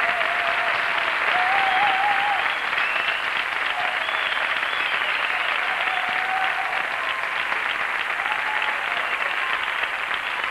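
Studio audience applauding steadily, a dense, even sound of many hands clapping.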